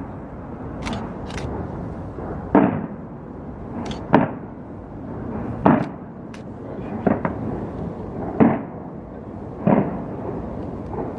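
Aerial fireworks bursting in a steady series of booms about every second and a half, with short, sharp high cracks between them.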